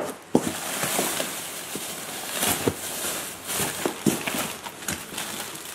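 Plastic packaging bags and cardboard rustling and crinkling as hands dig through a shipping box, with scattered small clicks and taps.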